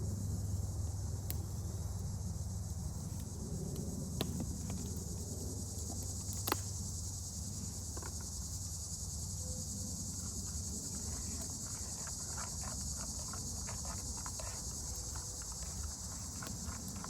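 A steady, high-pitched chorus of insects, with scattered faint clicks and ticks that come more often in the second half.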